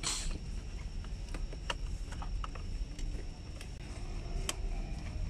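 Small clicks and rustling from hands handling wiring and plastic dashboard trim, with a brief rustle at the start and scattered sharp ticks after it, over a steady low hum.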